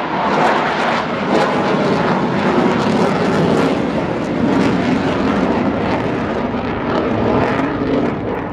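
Fixed-wing display aircraft's engine running steadily through a flypast.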